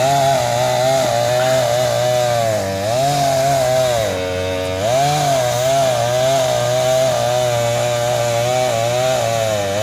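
Two-stroke chainsaw running under load while cutting into a tree. Its pitch sags and recovers several times as the chain bites into the wood.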